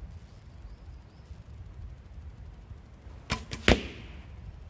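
An arrow shot from a recurve bow: a quick run of sharp clicks about two-thirds of the way in, ending in one loud snap with a brief fading tail.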